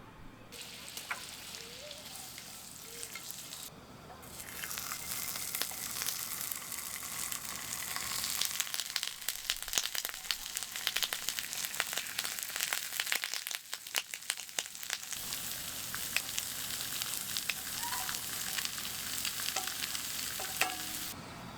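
Food frying in a hot pan: a steady sizzle full of fine crackles, which grows louder about four seconds in.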